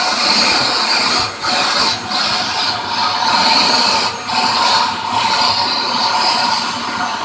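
Vacuum cleaner running through its crevice nozzle as it is drawn over a cat's fur, a steady airy hiss whose level and tone shift, dipping briefly three times as the airflow at the nozzle changes.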